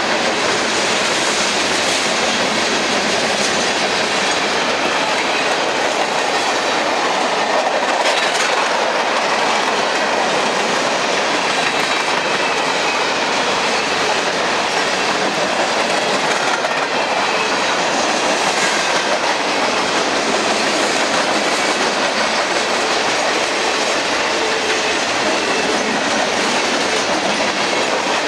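Freight cars, covered hoppers and boxcars, rolling past at steady speed: a continuous rumble of steel wheels on rail with rhythmic clickety-clack as the wheelsets pass over the rail, and a faint high wheel squeal at times.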